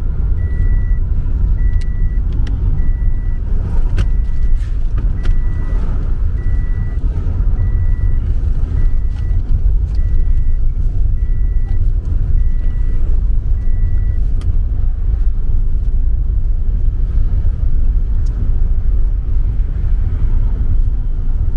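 Steady low rumble of a car driving, heard from inside the cabin, with a short high electronic beep repeating evenly, a little faster than once a second, that stops about two-thirds of the way through.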